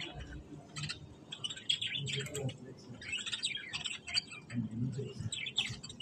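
Budgerigars chattering: a continuous busy run of short, quick chirps and warbles.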